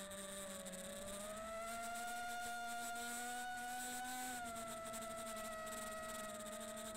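Quadcopter's EMAX Eco 2306 1700KV brushless motors and propellers whining steadily in flight, the pitch rising a little about a second in and dropping after about four seconds as the throttle changes.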